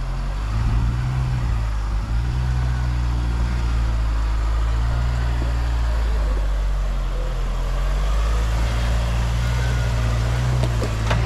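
Pickup truck's engine running at low revs as it crawls over rock ledges, the pitch rising and dipping a little with small throttle changes.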